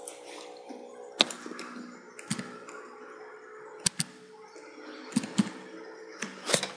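Scattered clicks of a computer mouse and keyboard, about eight in all, some in quick pairs, over a faint steady hum.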